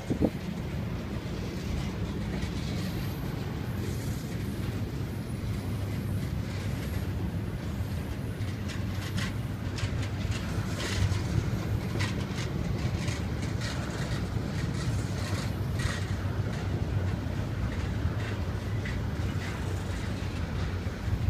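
Double-stack intermodal freight cars rolling very slowly past: a steady low rumble from the wheels on the rails, with scattered sharp clicks and clanks.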